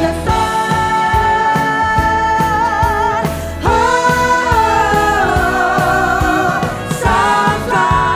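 A group of women singing long held notes with vibrato over backing music, in a musical-theatre pop song. A short break comes about three and a half seconds in, before a new held chord.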